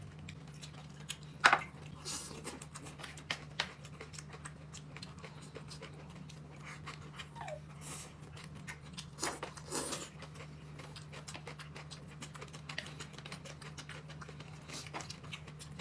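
Scattered light clicks and taps of tableware at a meal, over a steady low hum, with a sharper knock about one and a half seconds in and a few more near the middle.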